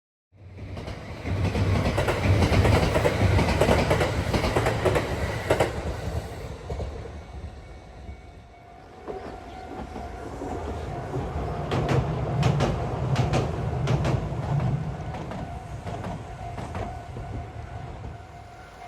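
A train passing close by: a loud rumble of wheels on rail that fades after about five seconds, then wheels clicking over rail joints, several times in close pairs.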